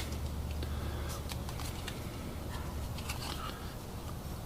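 Trading cards being handled and flipped through: faint, scattered light rustles and ticks over a steady low hum.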